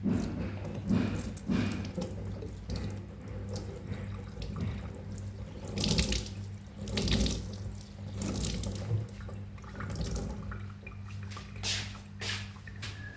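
Water running from a tap into a kitchen sink, splashing unevenly, with a few knocks now and then.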